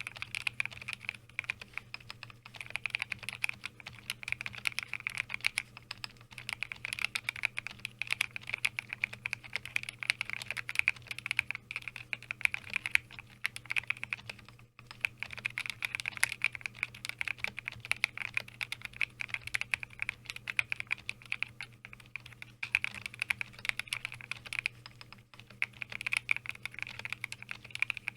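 Fast, continuous typing on a mechanical keyboard in a homemade cardboard case, with hand-lubed linear switches and Akko keycaps: a dense run of soft keystroke clacks, with a brief pause about halfway.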